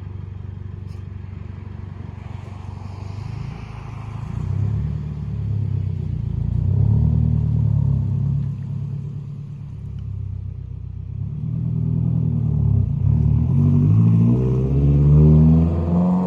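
Subaru car engine and exhaust accelerating hard, rising in pitch twice, with the second pull the louder one near the end. The car has had its exhaust changed.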